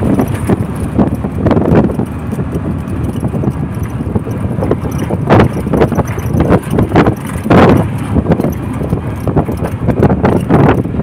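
Road noise heard from on board a moving vehicle: a steady running rumble with frequent irregular knocks and rattles of the body over the road.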